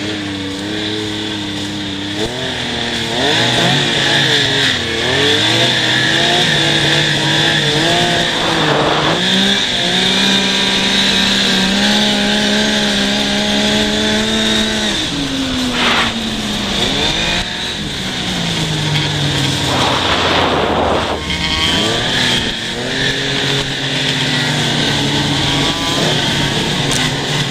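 Yamaha Nytro snowmobile's four-stroke engine running under load, its revs rising and falling with the throttle: held high for several seconds about ten seconds in, then gliding down. A steady high whine runs underneath, with a few short rushes of noise.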